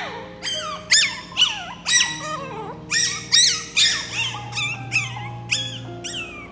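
Small puppy giving a rapid series of shrill, high-pitched yips, each sweeping up then down in pitch, about two a second. Background music with slow held notes plays underneath.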